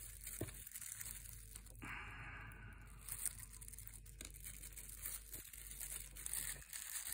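Thin plastic packaging rustling and crinkling in the hands, with a few light clicks. A denser, scratchy, tearing-like rustle lasts about a second, starting about two seconds in.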